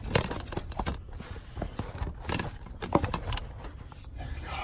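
A bunch of keys jangling and clinking amid irregular knocks and rustles of rummaging, as the keys are hunted for and picked up.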